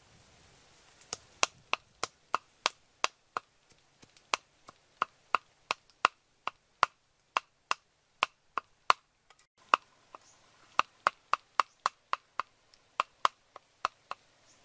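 Meat cleaver chopping raw pork on a round wooden chopping block, mincing it: sharp, even chops about three a second, starting about a second in, with a brief pause a little over nine seconds in.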